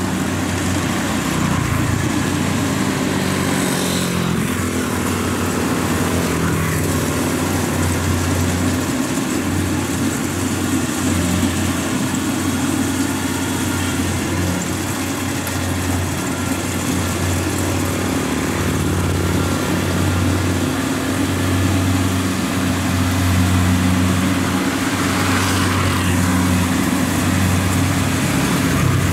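Kubota DC-70 rice combine harvester running: a steady diesel engine drone mixed with the even whir of its machinery.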